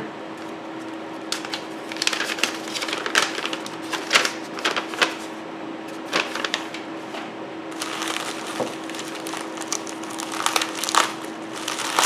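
Plastic bubble mailer crinkling and rustling in irregular crackly strokes as it is handled and torn open, over a faint steady hum.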